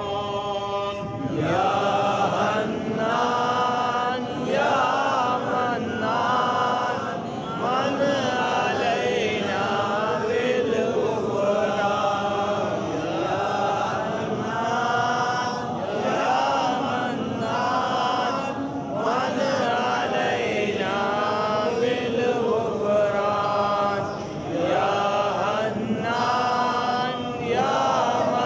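Voices chanting a devotional recitation, in phrases of a second or two with long held notes that bend in pitch.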